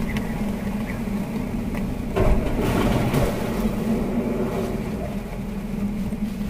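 Hurricane-force wind and rain blowing around a stopped vehicle whose engine is running, with a steady low hum under the noise. A stronger gust swells about two seconds in and eases off over the next second.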